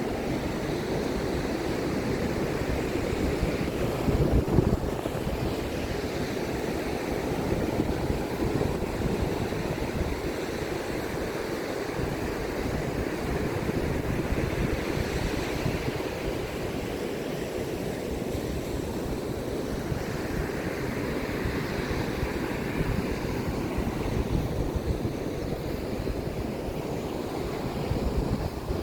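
Ocean surf washing onto the beach, with wind rumbling on the microphone; a stronger gust comes about four seconds in.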